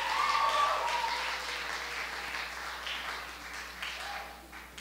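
Audience applauding, with a cheer near the start; the clapping gradually dies away.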